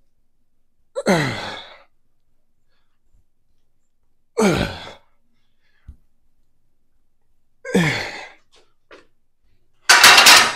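A woman exhales hard with a falling-pitched grunt three times, about three seconds apart, as she works through a set of front squats with a 115 lb barbell. Near the end comes a loud metal clang that rings briefly.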